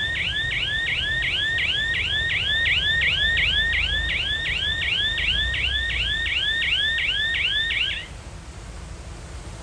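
Reversing alarm on heavy earthmoving machinery: a rapid repeating chirp of about three sweeps a second over a low engine rumble. The alarm stops about eight seconds in, and the engine keeps running.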